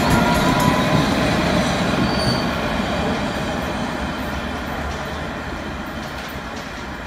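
London Underground S Stock train running out of the platform and away. The rumble of its wheels on the rails fades steadily, with brief high wheel squeals in the first two seconds or so.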